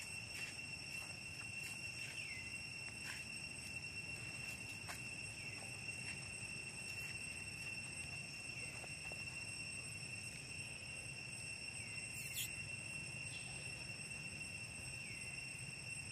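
Steady high drone of insects, with a short high chirp about every three seconds and scattered faint clicks.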